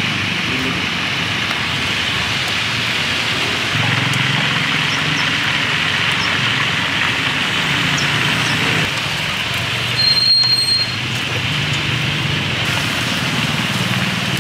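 Chicken pieces deep-frying in large pots of hot oil, a steady sizzle, with street traffic running underneath. About ten seconds in, a brief high-pitched beep is the loudest sound.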